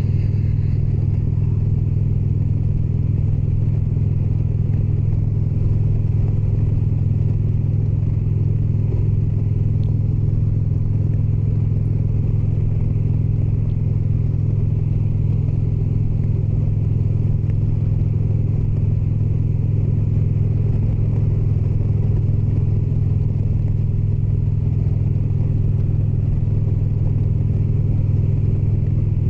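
Indian Springfield motorcycle's air-cooled V-twin engine running at a steady cruising speed, an even, unchanging drone with a low rumble.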